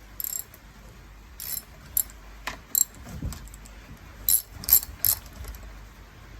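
Irregular sharp metallic clicks and clinks as the McCulloch chainsaw's clutch cover is worked off with hand tools: about eight separate knocks, the loudest a cluster about two-thirds of the way through.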